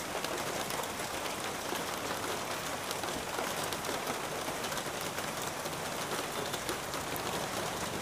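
Steady, even hiss of background noise with faint scattered ticks and no distinct click or knock.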